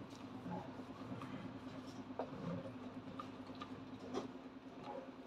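Faint, scattered small clicks and taps from cooking at the pot, over a steady low hum.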